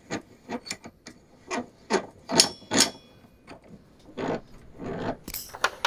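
Irregular metal clinks and scrapes from a cast-iron bench vise being handled, one clink ringing briefly about two and a half seconds in.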